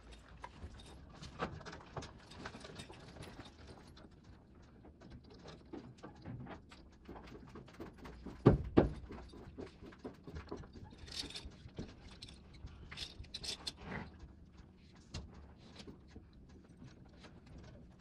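Western saddle tack being handled on a tied horse: small metal clinks and rattles of buckles and cinch hardware. Two loud knocks come close together about halfway through, with a few lighter knocks later.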